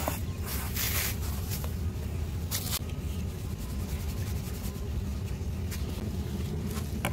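Hands scraping and rubbing dry, powdery dust in a plastic tray, with a couple of brief gritty scrapes in the first three seconds, over a steady low rumble.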